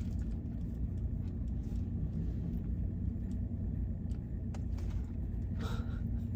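Steady low rumble of a car idling, heard inside the cabin, with a few faint clicks and a short sharp sound about five and a half seconds in.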